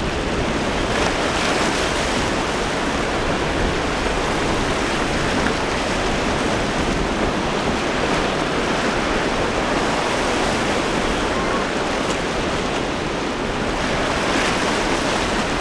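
Rough surf: waves breaking and washing over one another in a steady rush of water, with wind buffeting the microphone.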